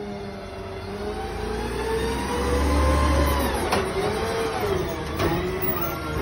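Garbage truck's diesel engine pulling up close, growing louder with its pitch rising and falling as it moves and slows, with two short sharp sounds about four and five seconds in.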